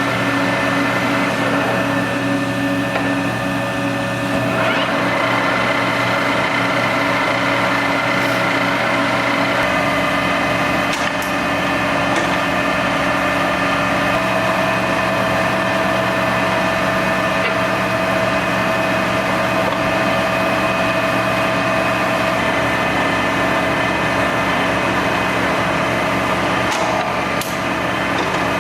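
American engine lathe running, a steady mechanical whine of several tones from its spindle and geared headstock. The tones shift about four and a half seconds in and again near ten seconds. There are a few faint clicks.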